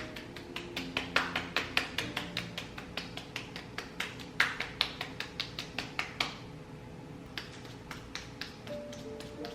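Soft background music with slow, held melody notes, over a quick run of light, sharp taps, several a second, that stops about six seconds in; a few more taps follow near the end.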